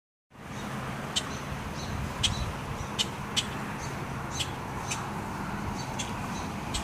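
Outdoor ambience: short, sharp bird chirps at irregular intervals over a steady background rumble and hiss.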